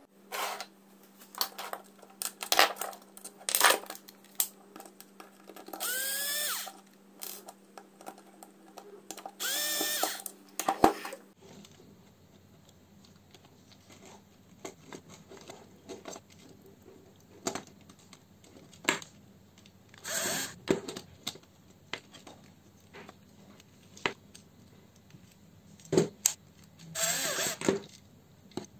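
Cordless electric screwdriver run in a few short bursts, each spinning up with a rising whine and then holding, driving the screws of a plastic mains socket. Between the bursts come clicks and rattles of screws and the plastic socket box being handled.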